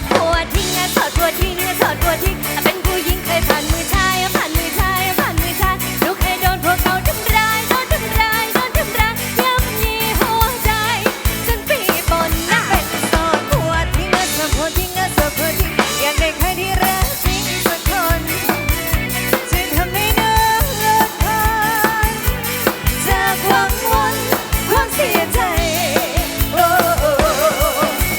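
Live band music: a full drum kit with snare and bass drum keeps a steady beat under wavering melodic lead lines.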